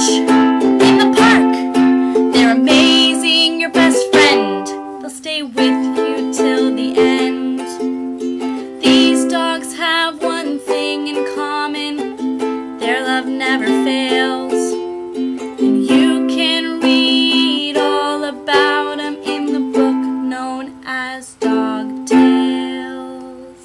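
Ukulele strummed through a song's closing instrumental, with the last chord dying away near the end.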